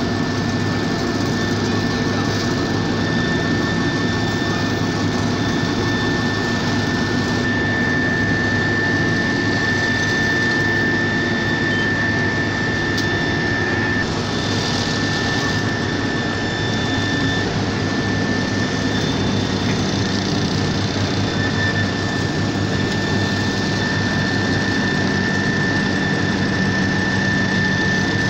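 Heavy diesel road-construction machinery running steadily, with a constant high whine over the engine noise.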